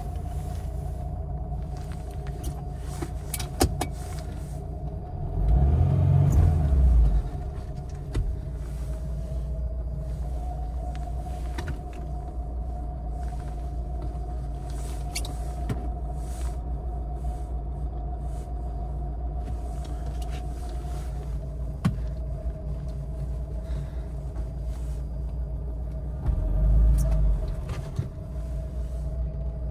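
Lada Niva 1.7i's four-cylinder engine idling steadily, heard from inside the cabin. The rumble swells louder briefly twice, about five seconds in and near the end, and a few sharp clicks come through.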